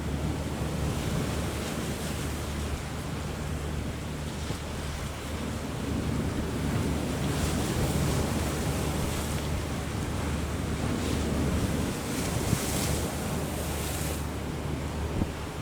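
Strong wind buffeting the microphone over choppy, breaking sea waves, with louder surges of wash around halfway through and again near the end. A steady low hum runs underneath.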